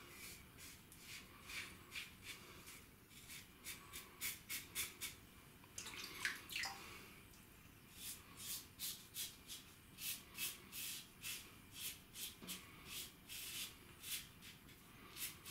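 A 1961 Gillette Adjustable safety razor scraping through lathered stubble on the neck and chin. It goes in short, quick strokes, about two a second, with a brief pause around the middle.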